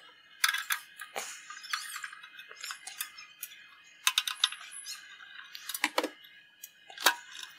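Side panel of a ReadyNAS NAS case being worked off by hand: irregular clicks, taps and short scrapes.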